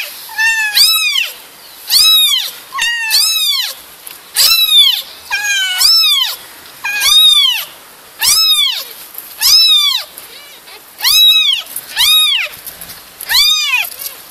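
Young kitten meowing over and over, loud high-pitched calls about once a second that rise and fall in pitch, with a few fainter, shorter calls between. It is calling for its mother from outside the nest box.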